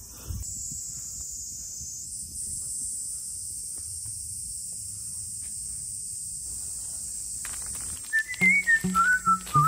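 Steady high-pitched droning of insects outdoors. About eight seconds in, background music starts: a whistled tune over low, rhythmic accompanying notes.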